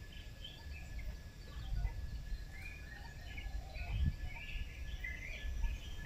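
Birds chirping in short calls over a low, uneven rumble that swells about four seconds in, with a thin steady high tone underneath.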